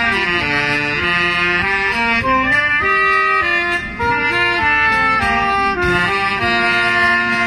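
Soprano saxophone and alto saxophone playing a melody together as a duet, in short moving notes.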